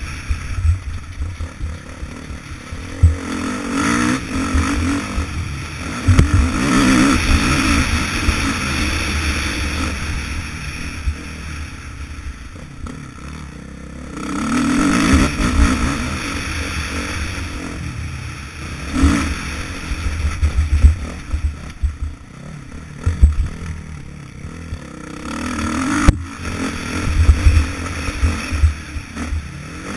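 Motocross bike engine revving hard and easing off again and again as it is ridden, heard from a helmet-mounted camera with wind buffeting the microphone. There is a sharp knock near the end.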